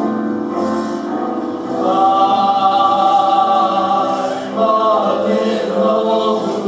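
Male chorus singing a slow song in held, harmonized notes.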